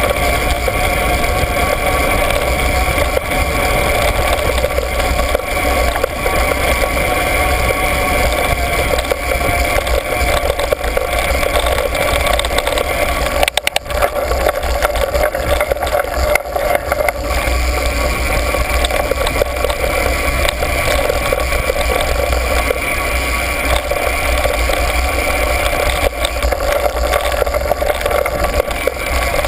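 Steady wind rush and trail rumble from a fast ride down a dirt track, buffeting a mounted camera, with a brief dip about fourteen seconds in.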